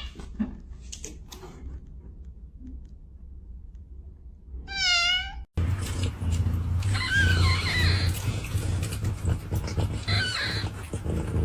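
Cats meowing: one long, wavering meow about five seconds in, then, after an abrupt cut, more meows over a low hum.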